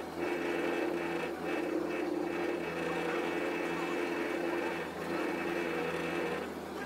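1968 Camaro engine running steadily at a crawl, heard at double speed so it comes across as a fast mechanical whir, easing off briefly a few times.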